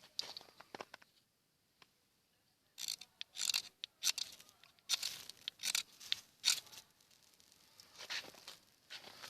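A knife's spine scraped hard down a ferrocerium rod to strike sparks: a series of short, rasping strokes in groups, after a brief pause near the start.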